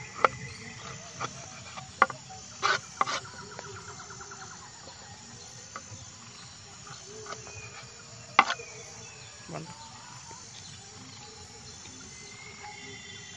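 A kitchen knife knocking on a wooden cutting board as ginger is cut: about six sharp knocks, unevenly spaced. Under them, night insects trill steadily at a high pitch.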